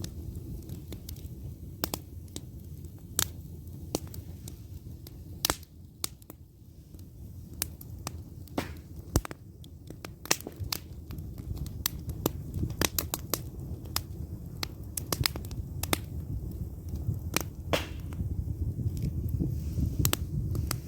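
Campfire burning, the wood crackling with irregular sharp pops, some much louder than others, over a low steady rumble.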